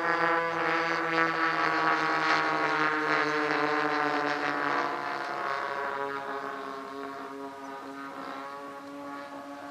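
Twin DLE 20 single-cylinder two-stroke gasoline engines of a radio-controlled Cessna 310 model plane droning in flight. The pitch slides gradually lower, and the sound fades over the second half as the plane draws away.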